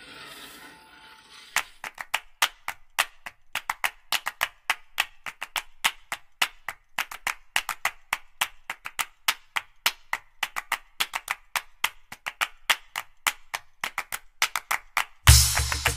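Background music made of a fast, uneven run of wood-block clicks, about four a second, beginning about a second and a half in. Near the end a heavy bass beat joins it.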